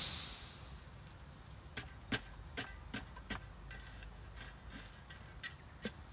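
A short hiss at the start, then about ten sharp knocks or taps at uneven intervals, beginning a little under two seconds in.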